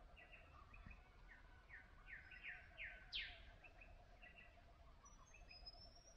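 Faint morning birdsong: a run of short down-slurred chirps that come quicker and quicker, the loudest about three seconds in, then a few scattered calls.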